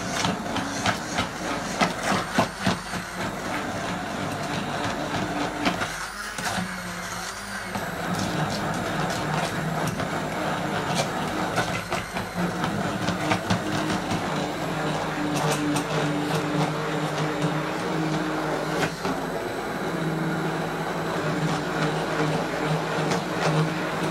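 Electric hand blender running in a stainless steel pot, puréeing hot carrot and coriander soup, with a steady motor hum. The motor note changes briefly about six seconds in, and scattered clicks and knocks come from the blender head against the pot.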